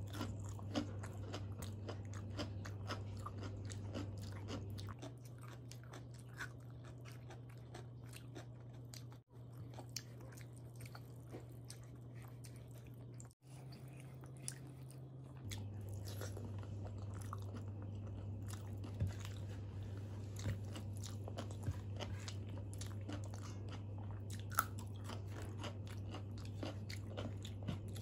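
Close-up chewing and biting sounds of a person eating rice and fried vegetables, with many small wet mouth clicks and crunches. A steady low electrical hum runs underneath.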